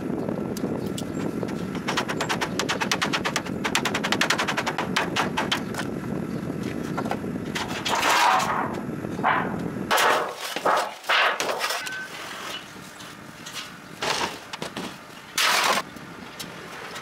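A fast, even run of knocks as metal roof flashing is worked and folded over a wooden beam, then louder rasping scrapes of the sheet metal being bent. Near the end come a few short crunching cuts of tin snips through the flashing.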